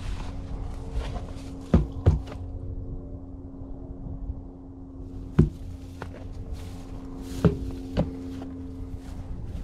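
Footsteps through dry grass and snow, with wind on the microphone and a steady low hum underneath. Five sharp knocks stand out: two close together about two seconds in, one in the middle, and two more near the end.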